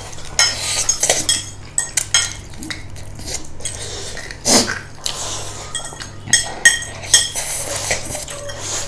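Cutlery clinking and scraping against dishes in a run of sharp clicks and knocks, the loudest about four and a half seconds in.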